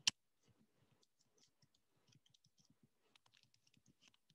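Faint computer keyboard typing: a quick run of light key clicks as a sentence is typed, with one louder click right at the start.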